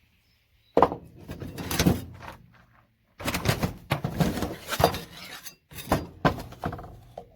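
Plastic RJ45 ethernet connector housings being pried apart to free the pins: a run of sharp cracking, clicking and scraping that starts about a second in and comes in three spells with short pauses between.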